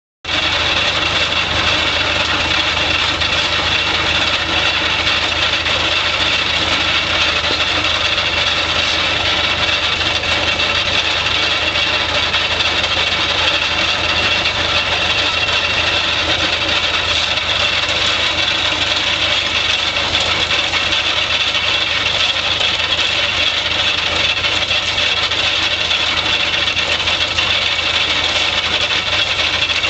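Antique tractor engines running steadily under belt load, driving a concrete mixer and a rock crusher, with a fast, even mechanical clatter.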